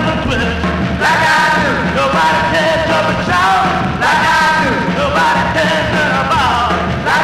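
A song: a singer's voice in wavering, gliding phrases over steady band accompaniment.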